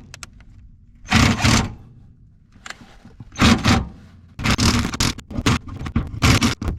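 Hand tools scraping and grating on rusty metal in short strokes while a rusted flush-head carriage bolt is worked out of the baler's floor: one stroke about a second in, another midway, then a quick run of several near the end.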